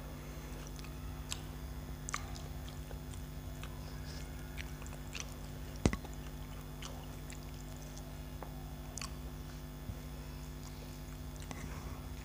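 Mouth-eating sounds of a man eating rice by hand from a steel plate: fingers mixing rice with scattered small clicks and a sharp click about six seconds in, then chewing. A steady low hum runs underneath.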